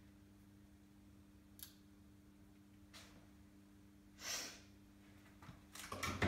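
Quiet room with a steady low hum and a couple of faint clicks of a small hand tool being handled. About four seconds in there is a short breath, and near the end a louder short clatter of tools on the workbench.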